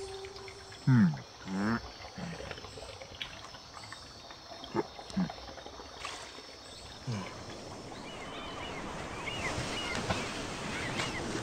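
Animated-film sound effects: two loud falling pitched glides about a second apart near the start, a few short knocks, then a soft outdoor water ambience with faint chirps that grows from about eight seconds in.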